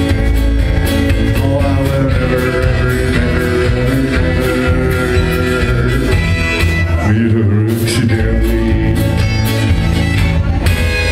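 Live country band playing an instrumental passage: fiddle over strummed acoustic guitar, electric guitar and drums.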